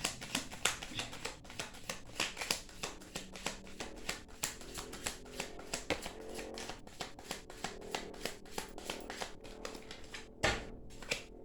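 A deck of tarot cards being shuffled by hand: a quick, continuous patter of card clicks. Near the end comes one louder knock.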